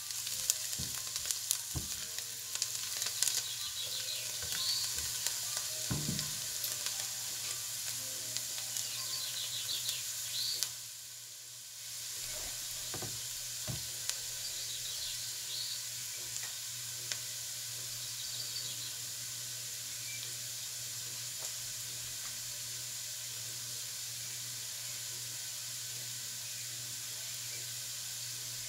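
Diced onion and carrot sizzling in butter and olive oil in a nonstick pot, sweating until translucent. A silicone spatula stirs and taps against the pot during the first ten seconds or so, then the sizzle goes on steadily without stirring.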